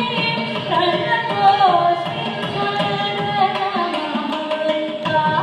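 Carnatic vocal music: a woman sings in gliding, ornamented notes, a violin shadows her melody, and a mridangam drum plays underneath.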